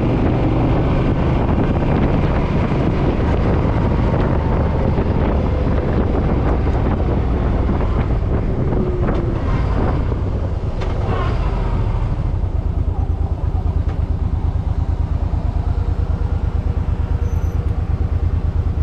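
Suzuki M50's V-twin engine running under way with wind on the microphone, then dropping to idle about two-thirds of the way through, where it settles into an even, lumpy pulsing.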